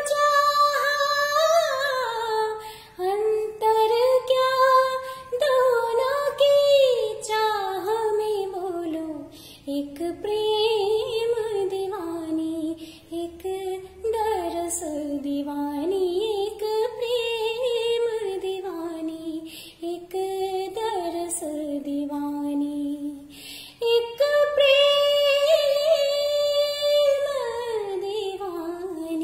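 A woman singing solo with no accompaniment, in long gliding phrases with ornamented turns and wavers in pitch, pausing briefly for breath between phrases.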